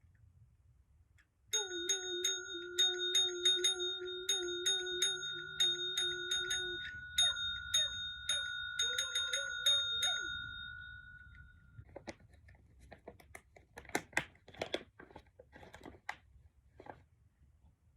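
A small bell struck over and over, about two to three strikes a second, for about eight seconds, with its ringing fading out afterwards. Then comes a run of soft clicks and crunches.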